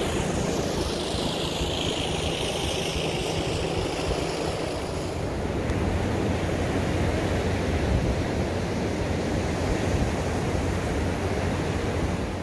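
Wind noise on the microphone over breaking ocean surf, with a steady low engine drone in the first five seconds.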